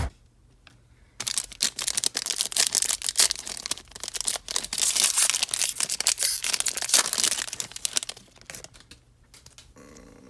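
A foil trading-card pack wrapper being torn open and crinkled: a dense run of crackling and tearing that starts about a second in and stops about a second and a half before the end.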